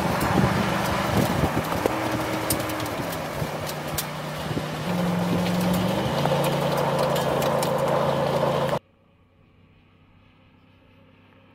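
Ford F-150 SVT Raptor's 6.2-litre V8 running hard as the truck drives over loose desert dirt, its pitch rising and falling with the revs, over a haze of tyre and dirt noise with scattered sharp ticks. About nine seconds in it cuts off abruptly, leaving only a faint low hum.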